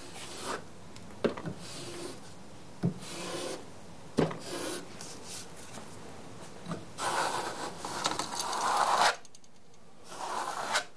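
Notched steel trowel scraping and combing tile mastic across a wall, with a few light ticks of the blade early on and a longer scraping stroke about seven seconds in.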